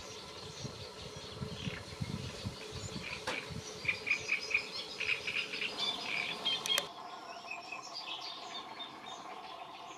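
Great reed warbler singing: a harsh, grating song of repeated chattering notes, which stops about seven seconds in.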